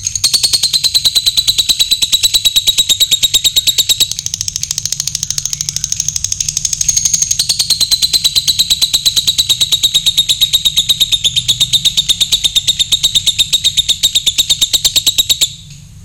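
Lovebird's long ngekek: a rapid, even chatter of shrill, high notes kept up without a break for about fifteen seconds, then cutting off suddenly near the end.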